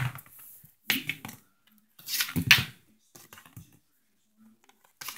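Small plastic toy figures being handled and tapped on a wooden floor: a few sharp clicks and taps, the loudest and longest about two seconds in.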